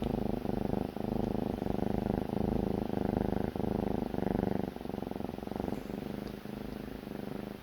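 A kitten snoring in its sleep: a rapid, rumbling rattle that swells and dips with each breath, growing somewhat quieter about halfway through.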